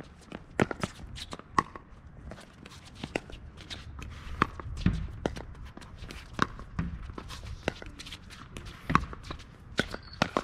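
Pickleball rally: a string of sharp, irregularly spaced pops from paddles striking the plastic ball, with players' footsteps on the hard court.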